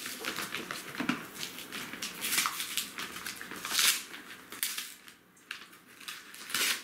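Crinkling and rustling of a mailing envelope being worked open by hand, with a few louder tearing bursts.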